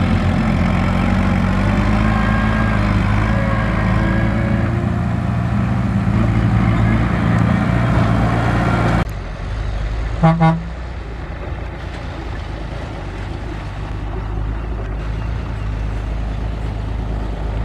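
Dump truck engine running at raised speed while the tipped bed empties its load of soil, then dropping abruptly to a lower idle. About a second later the truck's horn gives two short beeps, and the engine keeps idling.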